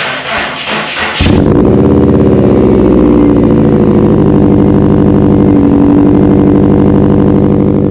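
2017 Subaru WRX STI's turbocharged 2.5-litre boxer four, with its mufflers replaced by a muffler delete, being started: the starter cranks for about a second, then the engine catches and settles into a loud, steady idle.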